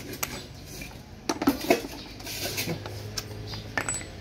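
Metal hand tools clinking and knocking against each other and the transmission case as they are handled, with several sharp clinks a little over a second in and a couple more near the end.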